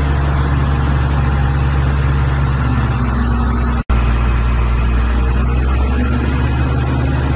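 The Cummins QSB5.9 turbocharged diesel of a Tadano GR300XL-1 rough-terrain crane runs steadily at low speed with a deep even hum. The sound cuts out for an instant a little under four seconds in.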